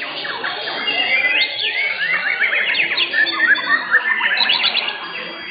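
Several white-rumped shamas (murai batu) singing at once: a dense overlap of rapid whistles, trills and quick up-and-down sweeps.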